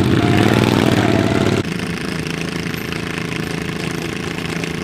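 Small racing lawnmower engines running loud. About a second and a half in the sound changes abruptly to a steadier, slightly quieter engine note.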